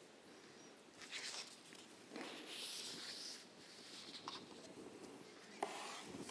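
Faint rustling of paper sheets being handled and gathered at a lectern, in a few short bursts, with a single sharp click near the end.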